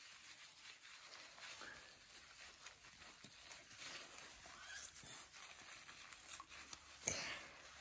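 Faint rubbing and swishing of a wet, soapy washcloth scrubbed over a bare foot with gloved hands, with one slightly louder swish about seven seconds in.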